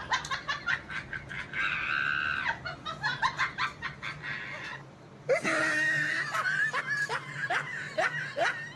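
Parrot squawking: two long harsh calls with short falling chirps and quick clicks between and after them.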